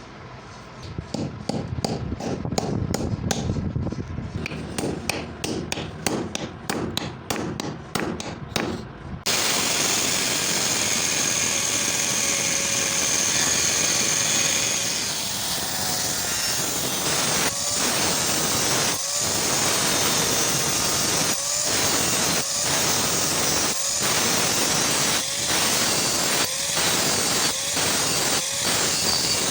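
Fast, repeated hammer blows on steel for about nine seconds, then a power tool starts and runs steadily, its sound dipping briefly about once every second and a quarter in the second half.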